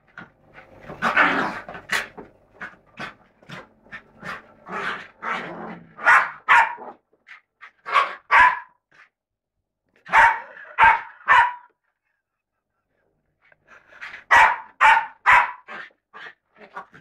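Bichon Frise barking in play: runs of short, sharp barks in quick succession, with a pause of about two seconds past the middle before it starts again.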